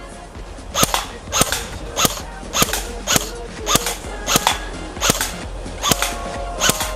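Electric airsoft AK-74 rifle firing single shots, about a dozen sharp clacks at an even pace of a little under two a second.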